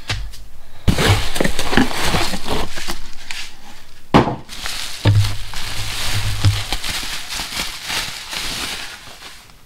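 Bubble wrap and plastic packaging rustling and crinkling as a folded camping chair is pulled out of its cardboard box, with a sharp knock about four seconds in.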